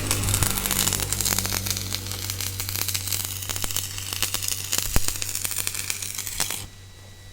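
Electric arc welding: a dense crackling, sizzling hiss over a steady low hum. The crackle cuts off suddenly about six and a half seconds in, leaving the hum.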